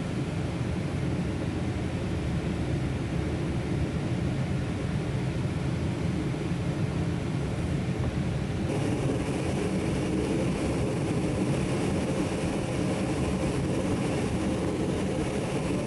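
Steady cabin noise of a small aircraft in flight: a low drone with air rushing past. It shifts slightly in tone about halfway through, and faint music comes in near the end.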